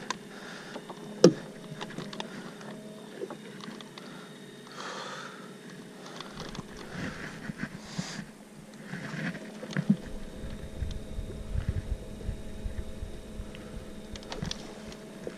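Electric Minn Kota Edge 45 tiller trolling motor running with a steady hum, with scattered knocks, a sharp one about a second in, and a low rumble in the second half.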